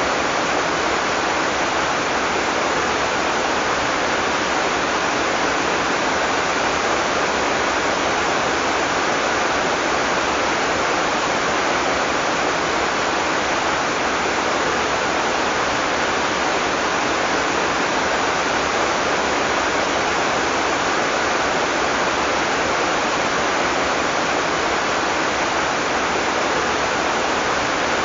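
Heavy tropical rain falling steadily, a dense, even hiss with no separate drops or thunder standing out.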